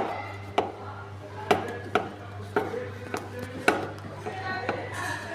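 Water inlet hose coupling being refitted and tightened by hand onto a washing machine's inlet, giving sharp irregular clicks and knocks about twice a second, over a steady low hum.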